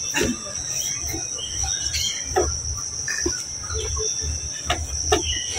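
Steady high-pitched drone of insects, with a few short knocks scattered through it.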